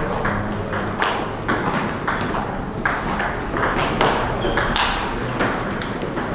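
Table tennis rally: the celluloid ball ticking sharply off the paddles and the table, one tick after another about every third of a second.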